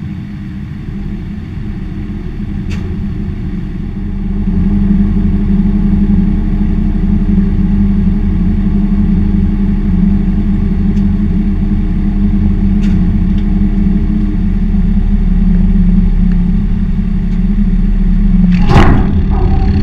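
Tractor engine running steadily close by. It gets louder about four seconds in, and there is a brief clatter near the end.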